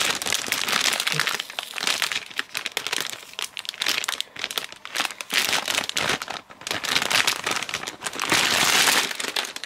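Metallic anti-static bag crinkling as a motherboard is handled inside it and slid out, in irregular bursts of crackling.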